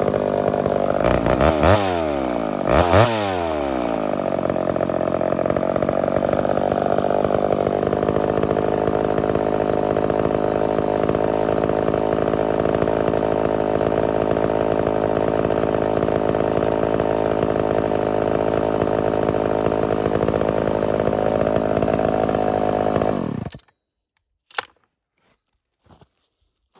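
Homelite Super XL-923 82cc two-stroke chainsaw engine running. It is revved briefly twice near the start, then runs steadily for about twenty seconds before being shut off, the pitch sagging as it dies. The owner judges that the saw has a small air leak.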